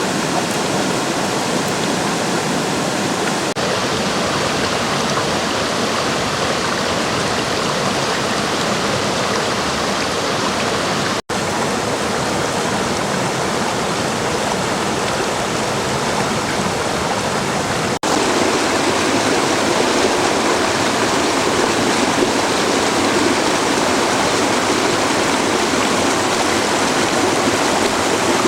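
Rushing water of a mountain stream, a steady even rush that gets a little louder from about eighteen seconds in.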